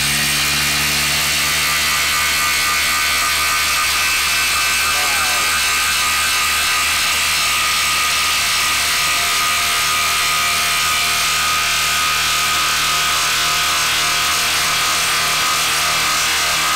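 Milwaukee cordless impact driver hammering continuously at a steady pitch as it drives a long 10-inch screw into a wooden stump under heavy load.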